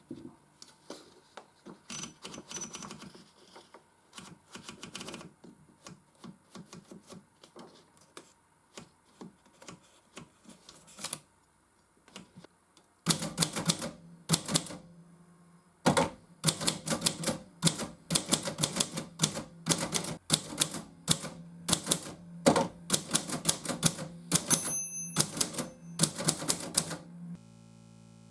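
Consul 221 portable manual typewriter being typed on, its typebars striking the platen. For the first dozen seconds the key strikes are sparse and light. From about halfway through they come fast and loud in quick runs, stopping shortly before the end.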